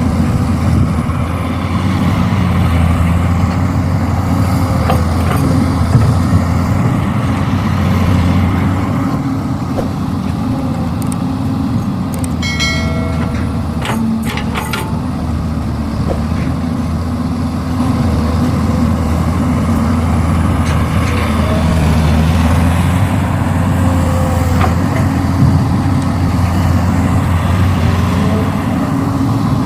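Heavy diesel engine running steadily under load, a deep continuous rumble. About halfway through there is a brief high-pitched squeal, followed by a few sharp clicks.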